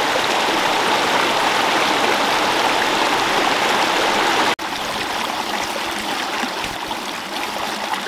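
Steady rushing of a rocky jungle stream, water running fast over and between boulders. It drops out for an instant at a cut just past halfway, then carries on a little quieter.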